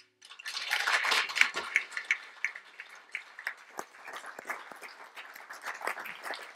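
Small audience applauding by hand, breaking out about a third of a second in, fullest over the first second or two, then thinning into scattered individual claps.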